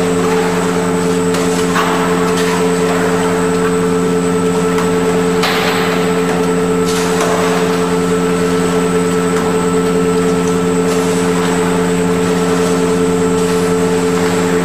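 Steady hum of cheese-plant machinery: a constant drone with several held tones, with a few brief rustling noises over it.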